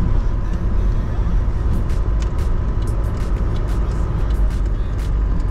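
Sprinter motorhome driving: a steady low rumble of engine and road, with light rattles and clicks at irregular intervals.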